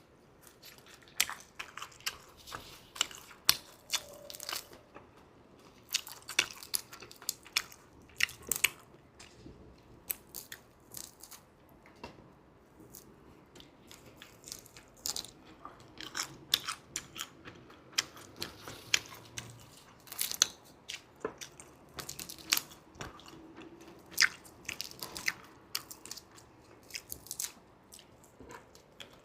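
Crunchy chewing of dried roasted shrimp: sharp, irregular crackles and bites coming in clusters.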